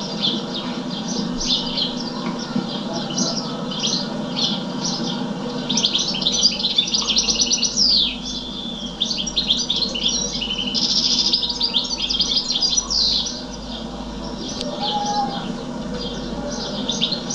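A small songbird singing continuously: quick runs of high chirps and trills, busiest in the middle, over a steady low hum.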